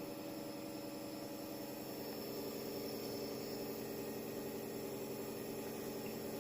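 Small compressor nebulizer running steadily with a droning hum, as used for inhalation therapy of a blocked nose; the hum grows a little louder about two seconds in.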